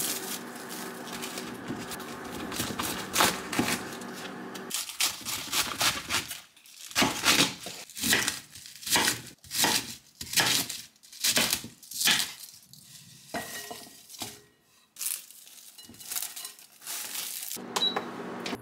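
Plastic bag crinkling as a cabbage is pulled out of it, then a kitchen knife chopping through the cabbage onto a wooden cutting board, roughly two strokes a second. Near the end comes a short beep from an induction cooktop's control panel.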